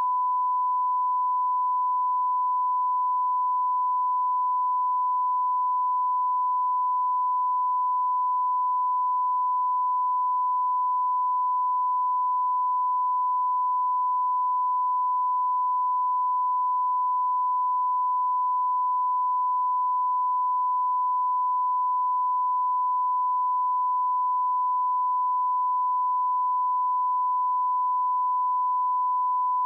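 Steady 1 kHz sine-wave reference tone, the line-up tone that goes with broadcast colour bars, held at one unchanging pitch and level.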